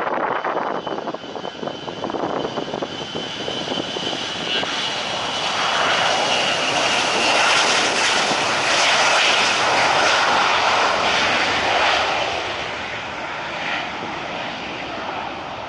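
Jet airliner engines passing close by: a high whine that slowly falls in pitch over the first several seconds, while the engine noise swells to its loudest about eight to twelve seconds in and then eases off.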